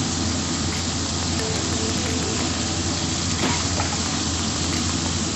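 Chopped mushrooms, corn and onion sautéing in oil in a frying pan, sizzling steadily as a wooden spatula stirs them.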